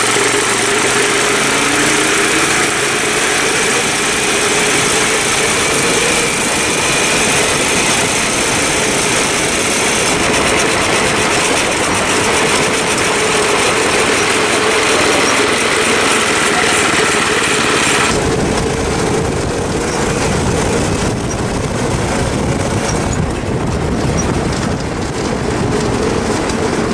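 Go-kart's small single-cylinder engine running hard at speed through a torque converter belt drive, its pitch rising early on as it picks up speed. About eighteen seconds in the sound suddenly turns deeper and more rumbly.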